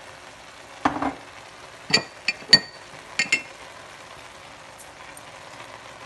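Metal utensils knocking and clinking against a cooking pot as spices go in: one dull knock about a second in, then several sharp ringing clinks. A faint steady sizzle of the frying chicken and vegetables runs underneath.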